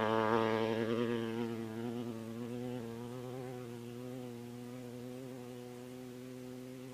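Off-road race vehicle's engine going away down the desert course: a steady buzzing drone that wavers a little in pitch at first and fades gradually as it recedes.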